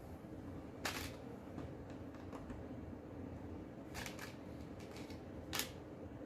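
LEGO plastic bricks clicking as pieces are handled and pressed into place: a few sharp clicks, the loudest about a second in, around four seconds and near the end, with fainter ticks between.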